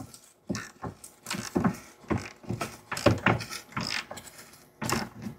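Hand ratchet and socket on a seized, rusted bolt: irregular ratchet clicks and metal clinks in short back-and-forth strokes as the stuck bolt is worked.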